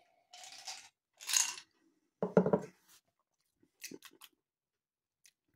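A person sipping brandy over ice from a glass tumbler with a slurp and a swallow, then a few light clicks about four seconds in as the glass is set back down on the stone worktop.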